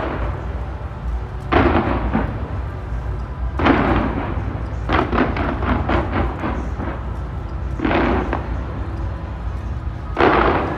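Fireworks going off in a heavy barrage: a loud bang every second or two, with a cluster of quick cracks about five to six seconds in, over a continuous low rumble.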